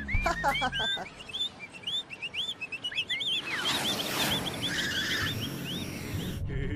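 Cartoon sound effects: quick, bird-like chirps repeat through the first few seconds, with a falling tone in the first second. From about three and a half seconds in, the jets of a flying saucer make a rushing whoosh, which stops abruptly near the end.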